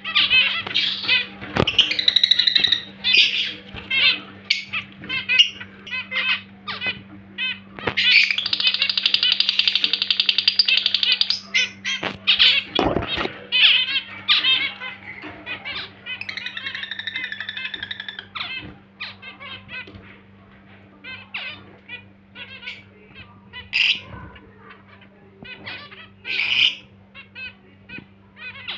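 Fischer's lovebirds chattering and squawking in short high chirps, with a fast, dense chattering trill of about three seconds near the middle. A steady low hum runs underneath.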